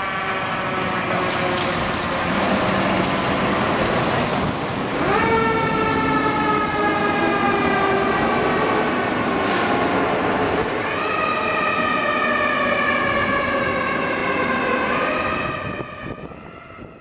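Federal Q mechanical siren on a fire engine, winding down in a long falling wail and spun back up twice, about five seconds in and about eleven seconds in. The sound fades out near the end.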